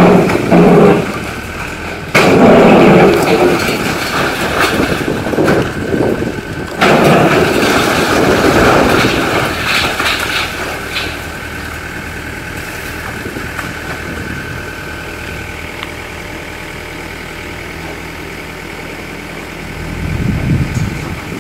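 Volvo EW60C wheeled excavator's diesel engine running while it demolishes a house, with heavy crashes of breaking concrete and brick during the first ten seconds or so. After that the machine settles to a steady engine drone.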